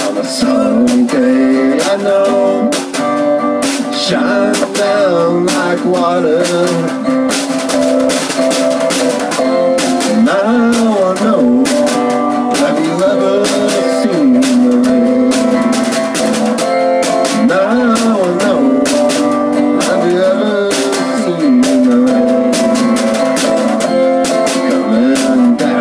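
Live acoustic guitar strummed with a snare drum keeping a steady beat, with voices singing at times over it.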